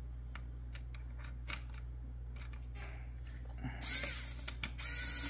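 Small pen-style electric screwdriver whirring in two short runs near the end, loosening a screw in a plastic bassinet base. A few faint clicks come before them.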